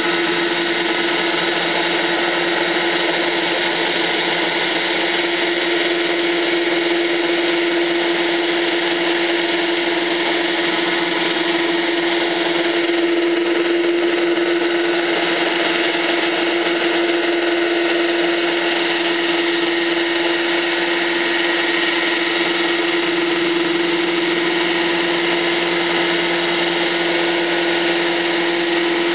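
UH-72 Lakota helicopter lifting off and hovering low. Its twin turbine engines and rotors run steadily, with a constant whine over a dense rushing noise.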